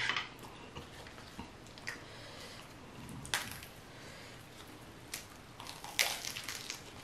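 Close-miked crisp lettuce leaves crackling in the hands as a lettuce wrap of steak and noodles is folded, with a few sharp crinkles. About six seconds in comes a louder crunch as the wrap is bitten.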